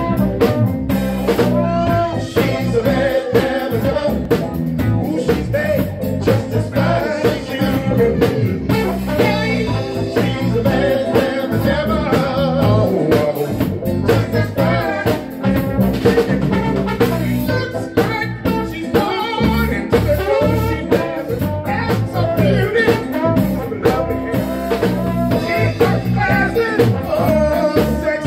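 A live band plays: a singer over electric bass, a Yamaha Motif ES keyboard, a trombone and a drum kit.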